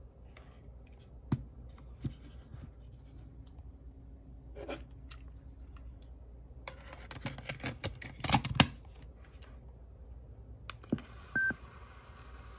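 Hands handling a Sony WM-EX641 cassette Walkman: scattered plastic clicks, then a quick run of louder clacks about eight seconds in. Near the end a click is followed by a short, high beep, and a steady hiss comes in after it.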